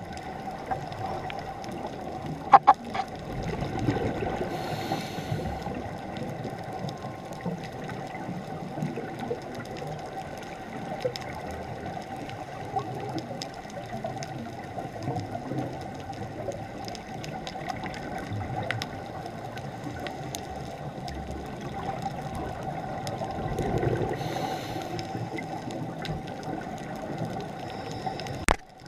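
Underwater ambience picked up by a submerged camera on a reef dive: a steady wash of noise with scattered faint clicks, and two louder rushes about 4 seconds in and near 24 seconds.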